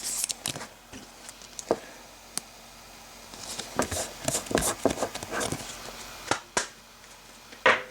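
Trading cards being handled at a table: scattered light taps, clicks and rustles. They are busiest from about four to six and a half seconds in, with a last click just before the end.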